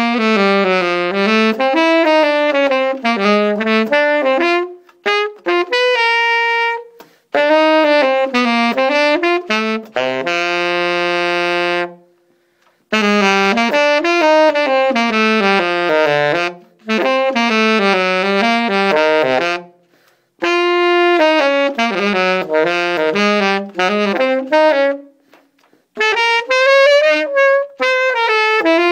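Tenor saxophone playing a jazz étude unaccompanied: phrases of quick running notes broken by short breath pauses, with one long held low note near the middle.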